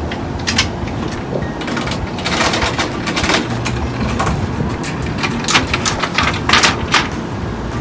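Steel chain clinking and rattling as it is unhooked from the brackets of a folding wooden countertop and let hang. The clinks come in clusters, about two to three and a half seconds in and again about five to seven seconds in, over a steady background hum.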